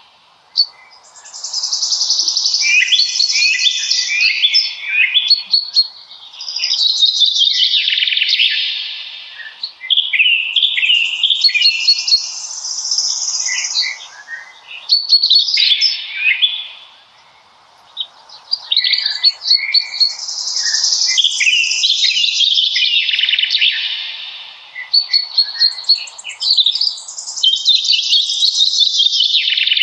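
Songbirds singing loud, long phrases of rapid high notes and trills, separated by short pauses.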